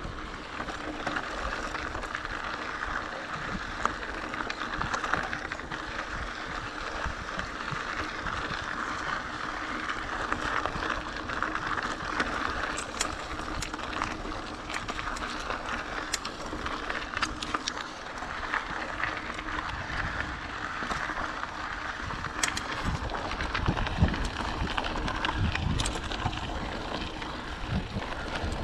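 Bicycle being ridden: steady tyre and drivetrain noise with wind rumbling on the microphone, and several sharp clicks and rattles in the second half.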